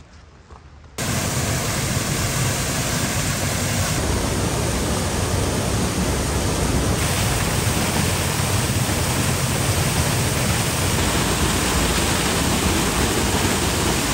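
Steady loud roar of a waterfall's rushing water, starting suddenly about a second in.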